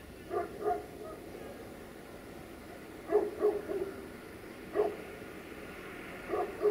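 A dog barking in short runs of one to three barks, a second or two apart.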